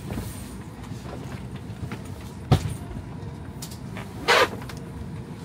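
Steady low rumble of an airliner cabin, with a single sharp knock about halfway through and a brief scuffing noise near the end.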